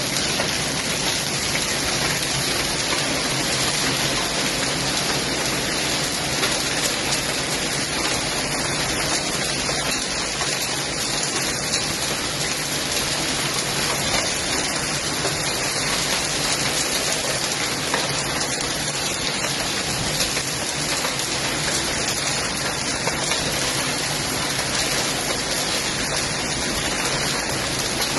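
Heavy thunderstorm rain falling steadily, a dense, even hiss with no letup.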